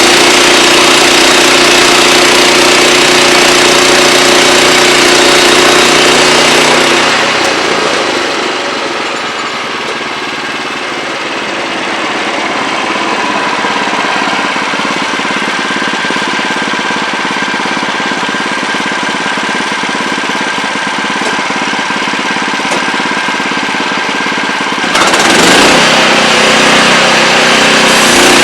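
Wood-Mizer LX25 portable bandsaw sawmill running steadily. From about seven seconds in, the engine's low hum gives way to a harsher, hissing noise. The plain engine sound comes back near the end.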